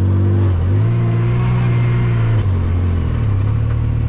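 Side-by-side UTV engine running on a trail, its revs dropping twice as the throttle eases off and picking back up each time.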